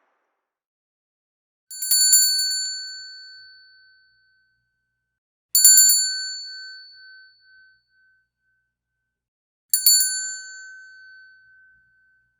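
A bell rung three times, about four seconds apart. Each ring starts with a quick rattle and then rings out clearly, fading over about two seconds.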